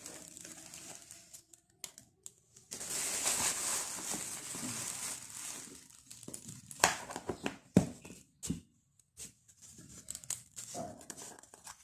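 A clear plastic bag crinkling and rustling as it is handled, then three sharp knocks of hard objects being set down.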